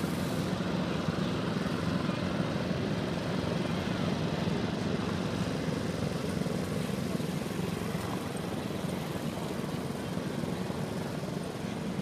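Small engines of several children's mini go-karts buzzing steadily as they drive round a track, growing a little fainter toward the end as the karts move away.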